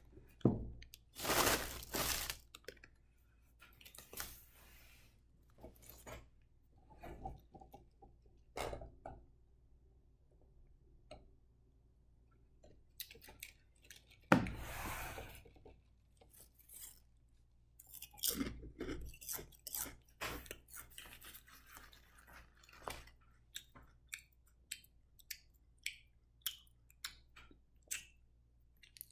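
Crinkling of a plastic snack-chip bag over the first couple of seconds, then close-up eating: chewing with many short crisp crunches through the second half, and one brief loud noise about halfway.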